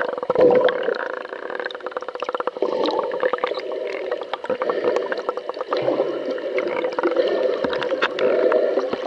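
Underwater sound picked up by a submerged camera: a steady rush of water with a dense, irregular crackle of clicks.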